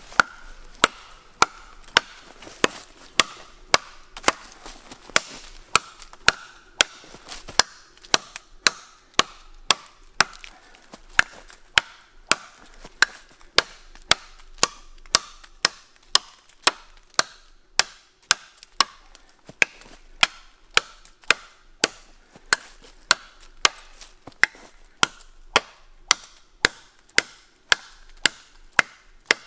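Orford Eban parang chopping through a felled log about 3½ inches thick: a steady run of sharp blade-on-wood blows, a little under two a second. The lighter parang needs many swings to cross-cut the log.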